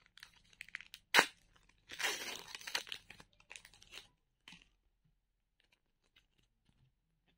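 Foil wrapper of a Match Attax trading-card pack being torn open and crinkled: a sharp rip about a second in, then crackling for a couple of seconds, stopping about four and a half seconds in.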